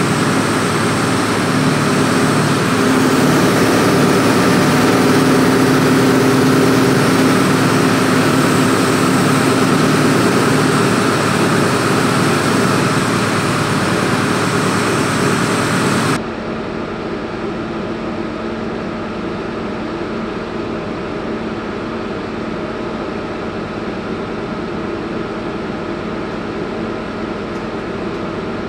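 Hitachi Zaxis 280 LC excavator's diesel engine running steadily, on its first run after a major repair. A little past halfway the sound drops suddenly to quieter and duller.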